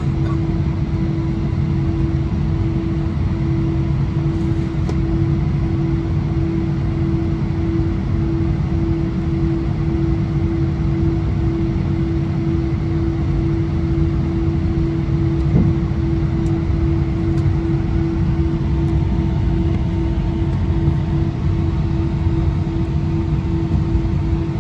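Cabin noise inside an Airbus A319-100 taxiing on idle engines: a steady hum at one pitch over a low rumble.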